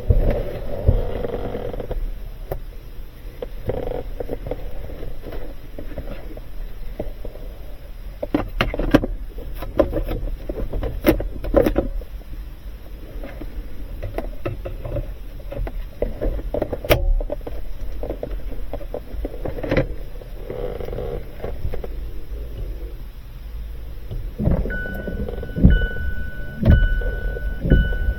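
Scattered clicks, knocks and rustles of parts and trim being handled inside a Mazda CX-5 during a multi-function switch replacement. About 25 seconds in, the vehicle's electronic warning chime starts beeping repeatedly.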